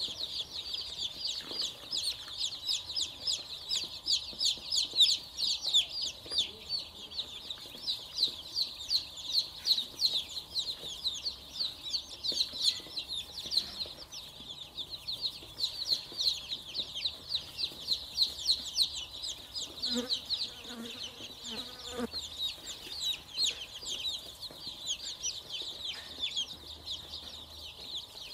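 A large brood of baby chicks peeping nonstop, a dense chorus of short, high cheeps that slide downward in pitch.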